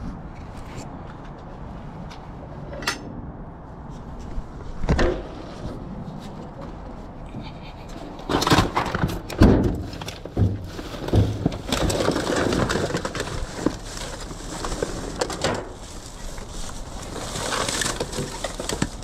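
Discarded items being handled while rummaging through trash: scattered knocks and thuds, a cluster of loud bangs about halfway in, then a longer stretch of rustling and clattering.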